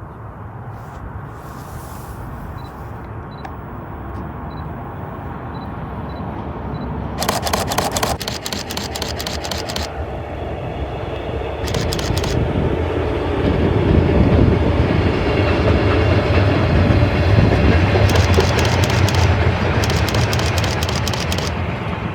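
EF210 electric freight locomotive and its train approaching and rolling past, a low rumble that builds to its loudest over the second half. Several bursts of rapid clicks cut in over it, the longest about seven seconds in and two more near the end.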